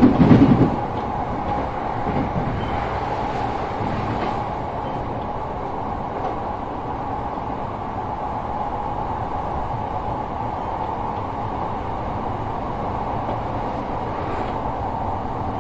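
Sotetsu 12000 series electric train running at speed, heard inside motor car MoHa 12909, which has Mitsubishi IGBT-VVVF control. A burst of heavy wheel clatter comes in the first second, then a steady rolling drone with a constant hum.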